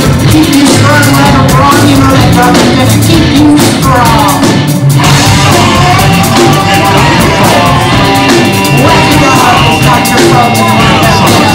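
A live rock band playing loudly, with electric guitars, a drum kit and a saxophone.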